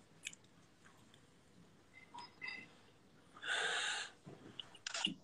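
A single breathy hiss of a person's breath at the mouth while smoking a cigarette, lasting under a second, about three and a half seconds in, amid quiet room tone.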